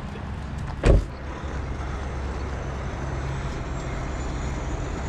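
A car door shutting with a single loud thump about a second in, over the steady low hum of idling vehicle engines.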